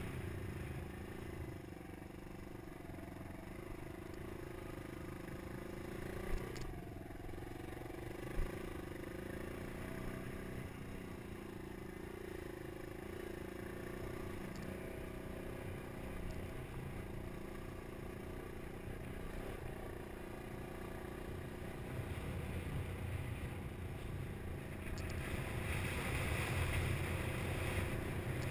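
Suzuki DR200 dirt bike's single-cylinder four-stroke engine running steadily while riding a rough dirt trail, with two sharp knocks a few seconds in. Wind noise on the microphone grows louder near the end.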